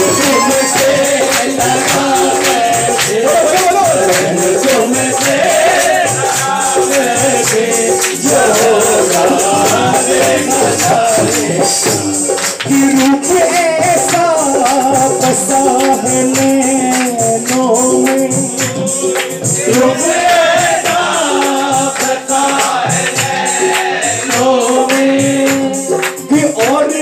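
Male lead singer singing a Hindi devotional bhajan to Khatu Shyam through a microphone and PA, with others singing along and a steady beat of hand-clapping and jingling percussion.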